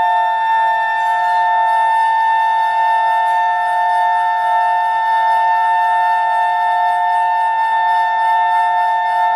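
Clarinet with live electronics holding a steady drone: two close pitches sounding together without a break, with a faint low hum beneath.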